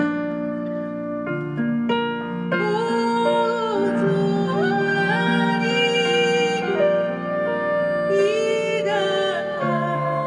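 Live acoustic music: a grand piano accompanying a woodwind melody with sliding notes.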